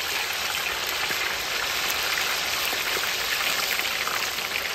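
Chicken pieces sizzling and crackling steadily in hot frying oil.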